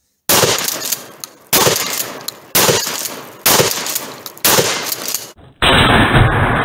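Five 12 gauge shots from a Hawk Model 982 pump-action shotgun, about a second apart, each ringing away before the next. Near the end the shots give way to a different steady noise.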